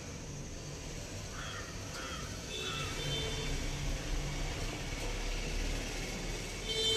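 Outdoor background: a steady low rumble of distant traffic, with a bird giving a few short calls about one to three seconds in.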